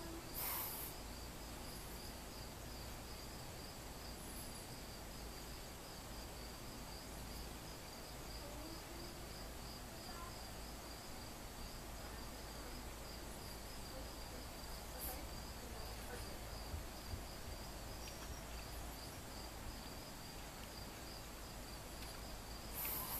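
Insects chirping in a steady, evenly pulsing high note throughout, with a few brief hissing noises near the start, about fifteen seconds in, and at the very end.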